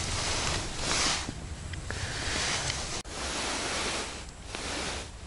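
Wind buffeting the microphone on open ice: a steady hiss with low rumble that swells and fades in gusts, cut off for an instant about three seconds in.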